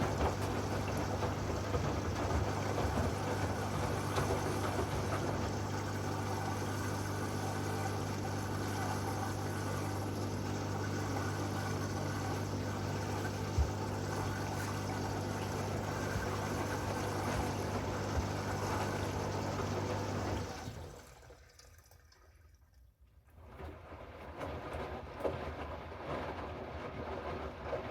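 Hoover washing machine's recirculation pump humming while its jet sprays water into the drum, with steady splashing. About twenty seconds in the pump and the spray stop suddenly; after a near-quiet pause of a few seconds, fainter washing sounds with light knocks start again.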